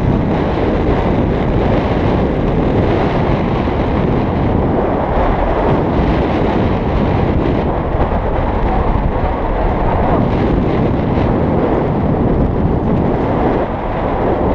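Wind blowing across the microphone of a camera carried on horseback: a steady, loud rushing noise that never lets up.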